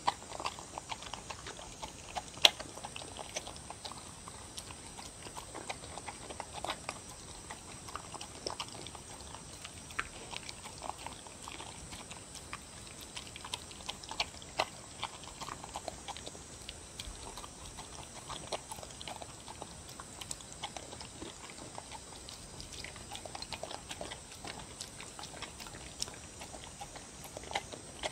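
A dog lapping and chewing seaweed, dried pollack and beef soup from a bowl: an irregular run of small wet clicks and smacks, the sharpest about two and a half seconds in.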